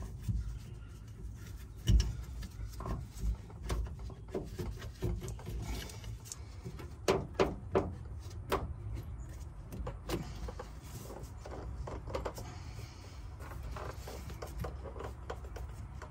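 Scattered clicks, taps and rubbing as a gloved hand works an oiled metal adapter fitting and its hose clamps into a rubber fuel filler-neck hose, with a cluster of sharper clicks about halfway through.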